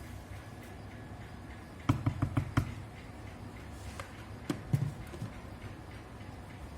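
Kitchenware knocking as cake batter goes into a baking dish: a quick run of about five knocks about two seconds in, then a few single knocks.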